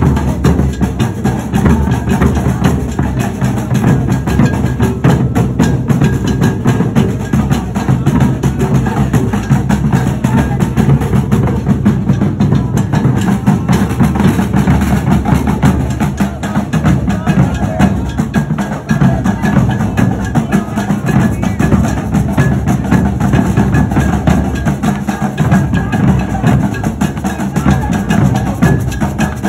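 Street drumming band playing a continuous, loud rhythm on large rope-tensioned bass drums.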